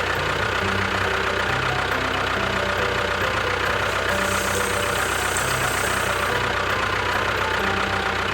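A small engine or motor running steadily, with an even hum throughout and a hiss that rises for a couple of seconds in the middle.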